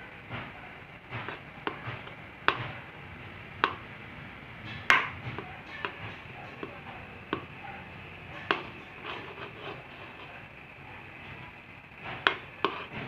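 A spoon stirring a mashed banana and condensed-milk mixture simmering in a pan, knocking and scraping against the pan about a dozen times at irregular intervals over a steady hiss of the cooking mixture.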